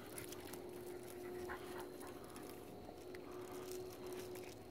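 Gray wolves panting and sniffing close by, with a faint steady tone underneath.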